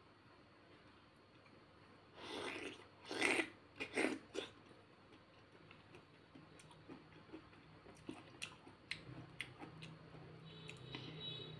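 Close-up eating sounds: a few loud wet chewing sounds about two to four seconds in, then scattered small clicks as a spoon scrapes golden kiwi flesh from the skin. Music comes in near the end.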